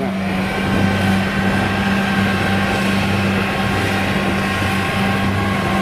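Kubota DC-70G rice combine harvester's diesel engine running steadily under load, a constant drone with no change in pitch, as the machine works through soft, sticky mud on its tracks.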